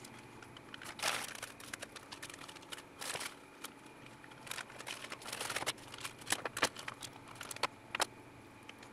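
Small clear plastic parts bags being handled, rustling and crinkling in irregular bursts, with a few sharp clicks.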